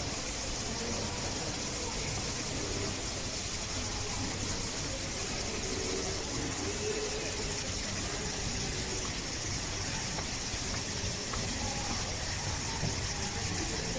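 Steady background ambience: an even hiss over a low rumble, with a faint murmur of distant voices.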